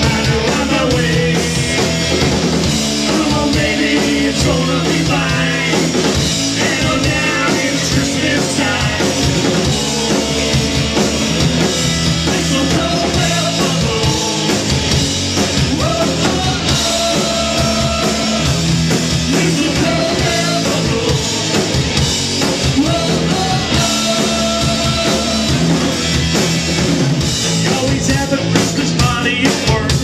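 Live punk rock band playing: drum kit, electric bass, electric and acoustic guitars, with sung vocals.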